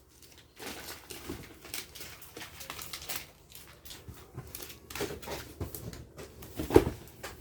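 Scattered light rustles, taps and clicks of a gift and its wrapping being handled, with one louder short knock near the end.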